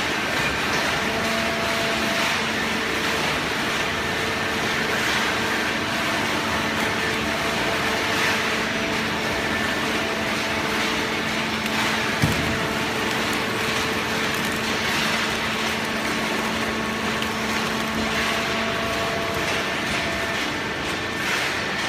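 Hydraulic baler running steadily while compressing waste paper: a constant machine hum over a dense mechanical noise, with a single sharp knock about twelve seconds in.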